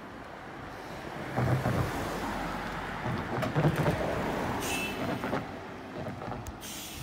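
Sinotruk Howo T7 tractor unit's six-cylinder diesel engine running as the truck drives past, getting louder about a second in and easing off towards the end, with two short hisses in the second half.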